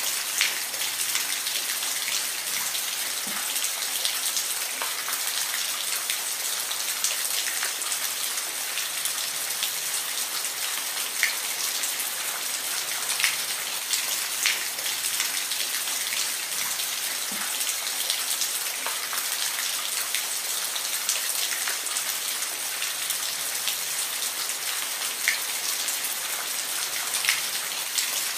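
Steady rain falling, a dense even hiss with scattered louder individual drops ticking on a surface.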